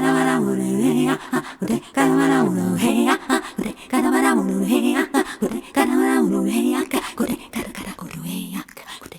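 A woman's voice singing repeated wordless syllables through a harmonizer, layered into parallel vocal harmonies, with short clicks between phrases. The singing thins out and dies away near the end.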